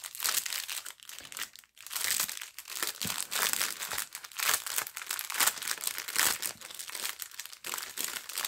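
Clear plastic zip-lock bag crinkling on and off as it is handled, the small packets of round diamond-painting drills inside shifting with it.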